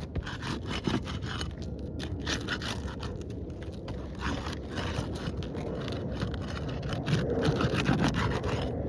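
Repeated, irregular scraping of a roof snake pried under asphalt shingles, breaking their sealant strips to unseal them. A low rumble builds near the end.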